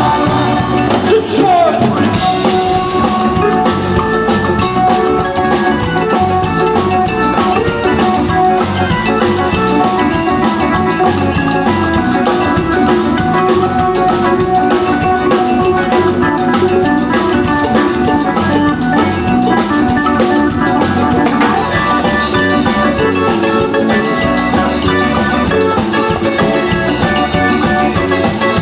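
Live band playing an instrumental stretch of a song: drum kit and hand percussion keep a steady groove under keyboard, bass and guitars.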